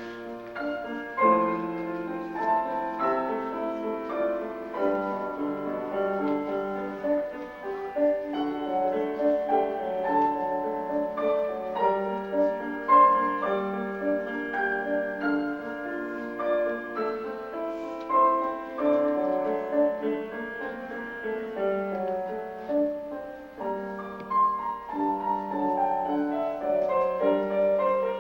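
Piano music: a steady, unbroken run of notes.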